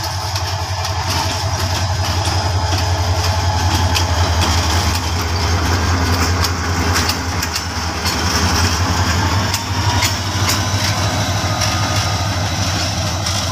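Diesel locomotive engine running as the locomotive passes slowly at close range: a steady, loud low drone, with scattered sharp clicks and knocks over it.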